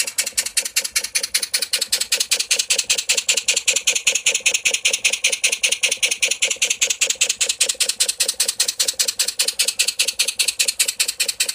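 1930s Heinrich Rehse single-cylinder model steam engine (30 mm bore, 50 mm stroke) running steadily, a fast even beat of exhaust chuffs, with the table under it rattling in time with the strokes.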